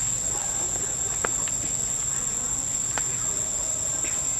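Steady high-pitched drone of an insect chorus in the forest canopy, unbroken throughout. Two sharp clicks stand out, about a second in and again about three seconds in.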